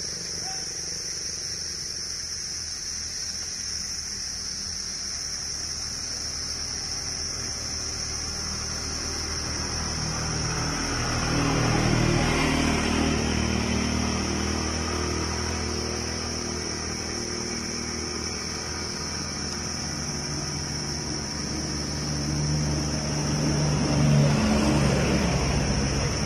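A motor vehicle's engine hum swells and fades twice, over a steady high insect chirring.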